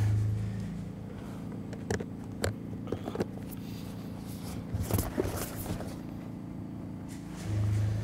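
Light clicks and rustling from a perforated metal band being pressed and slid against a rubber pond liner, with a few sharp taps about two to three seconds in and a scuffle around five seconds. A low engine drone runs beneath, louder near the start and again near the end.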